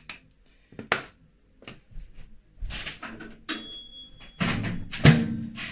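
A microwave oven beeps once, a steady high electronic tone lasting nearly a second. It is followed by louder noise with a low hum and a sharp clunk, amid light clicks of bowl and utensil handling.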